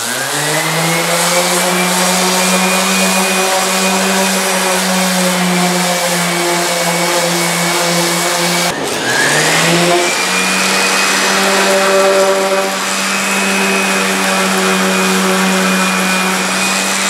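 Electric random orbital sander spinning up and running steadily, its pad sanding bare wood. About nine seconds in it stops briefly and spins up again.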